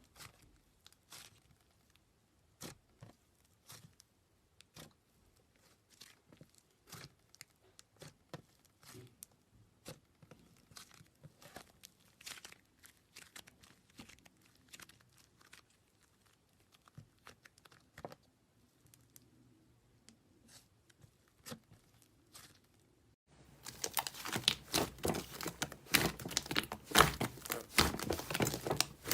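Slime being squeezed and stretched by hand, with scattered soft crackles and pops. About three-quarters of the way through, a much louder, denser sticky crackling takes over.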